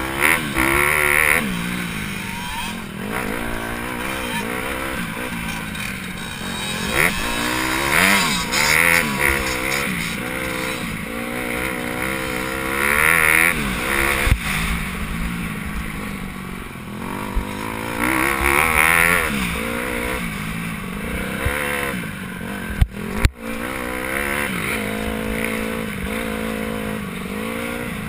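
Motocross bike engine heard from on board, revving up and falling back again and again as the rider accelerates, shifts and rolls off around a dirt track. Late on, two sharp knocks come close together.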